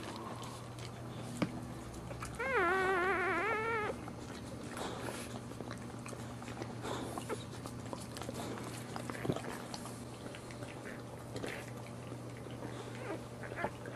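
A newborn Boxer puppy gives one wavering cry lasting about a second and a half, a couple of seconds in, over a steady low hum.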